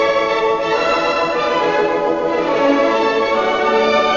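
Orchestral music, bowed strings playing held chords that change every second or so.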